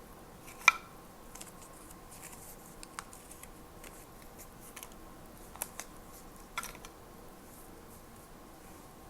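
Scattered small clicks and taps of stationery being handled at a desk. A sharp click comes about a second in, and two more come around six seconds in.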